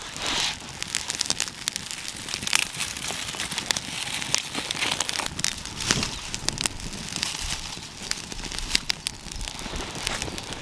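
Silver birch firewood burning in a campfire, crackling with many irregular sharp pops over a steady hiss; silver birch burns really hot and fast.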